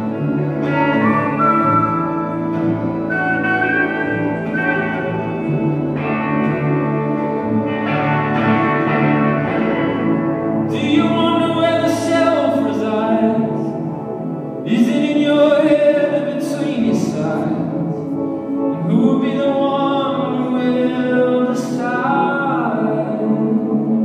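Live band music recorded from the audience: a sliding, bending melody line over sustained low notes, with sharp percussive hits joining about eleven seconds in.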